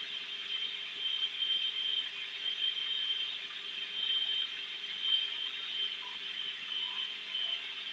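Water-cooled tile saw's water pump running with a steady low hum and a high whine, the blade motor not yet started.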